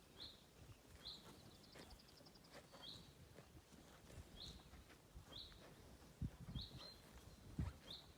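Cows grazing, faint: soft crackles of grass being torn and chewed, with a few heavier low thuds near the end. A bird repeats a short chirp about once a second, with a brief trill near two seconds in.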